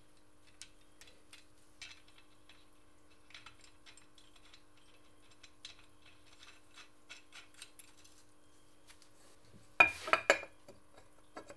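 Light metallic clicks and taps from parts being handled on a motorcycle engine, then a quick cluster of loud clunks about ten seconds in as the cast aluminium side cover is set onto the Simson S51 engine case. A faint steady hum runs underneath.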